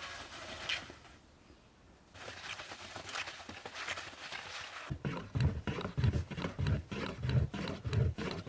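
A wet cloth on a pole wiping the hot inner walls of a clay tandoor, scraping and hissing with a short pause. About five seconds in, a long wooden rolling pin rolls lavash dough on a wooden board, making a steady rhythm of low thuds and clicks, a bit under two strokes a second.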